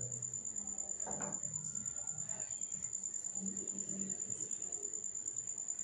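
Cricket chirping in a steady high-pitched trill that pulses rapidly and evenly.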